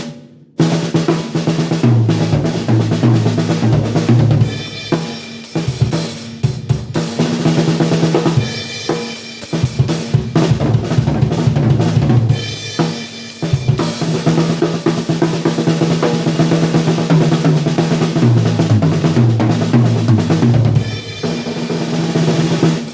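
RL Drum Co. 6×14-inch ten-lug seamless acrylic snare drum played in grooves and fills on a drum kit with bass drum, its head damped with a piece of window gel and still at its out-of-the-box tuning. The playing comes in a few phrases with short breaks between them.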